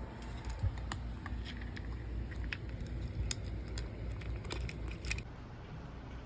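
Irregular small clicks and crackles over a steady low hum, thinning out about five seconds in.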